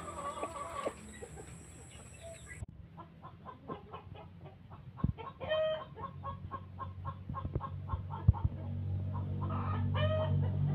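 A flock of free-range chickens clucking steadily as they feed, with two louder, longer calls about five and ten seconds in. A sharp knock about eight seconds in is the loudest single sound.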